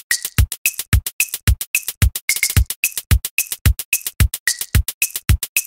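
Electronic background music with a steady drum-machine beat: low kicks about twice a second with crisp hi-hat ticks between them and short synthesizer notes.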